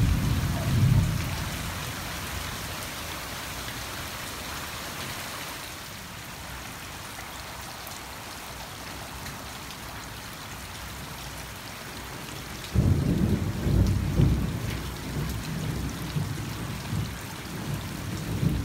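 Steady rain, a continuous hiss of drops falling on leaves and lawn. A loud, uneven low rumble comes in briefly at the start and again from about two-thirds of the way through.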